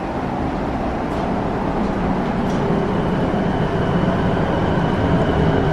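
A JR East Ome Line commuter train running, heard from inside the carriage: a steady rumble of wheels and running gear that grows slightly louder. A thin, steady high whine joins about halfway through.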